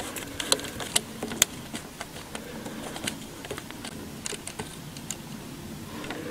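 Irregular light clicks and small metallic taps of fingers handling the ignition coil and its little fixing screw on a Renault 4's Ducellier distributor while the coil is being taken off.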